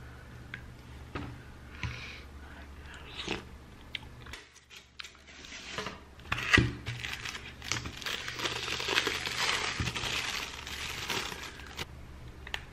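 A few light clicks, then thin plastic packaging crinkling and tearing for several seconds as a natto container is opened and its sauce sachet torn, with a sharp snap about six and a half seconds in.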